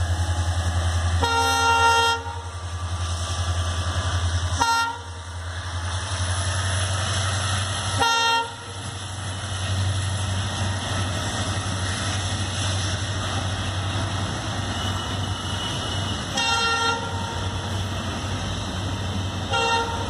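Indian Railways EMD WDG4 diesel-electric freight locomotive, its two-stroke V16 engine throbbing low, sounds its horn. One longer blast comes about a second in, then short toots near 5, 8, 16 and 20 seconds. After about 5 seconds the engine fades and the steady rolling rumble of container wagons passing takes over.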